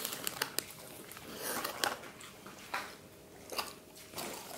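Staffordshire bull terrier puppy chewing a treat: a quick run of sharp crunching clicks in the first half second, then occasional single crunches and softer mouth noises.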